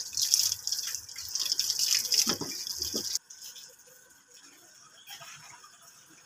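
Tap water running and splashing over a wooden pestle and clay mortar bowl as they are rinsed. The water sound cuts off suddenly about three seconds in, leaving only faint scattered sounds.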